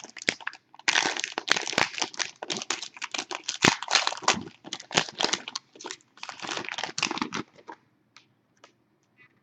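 A trading card pack's wrapper being crinkled and torn open by hand: a dense run of crackles that stops about three quarters of the way through, leaving a few faint clicks.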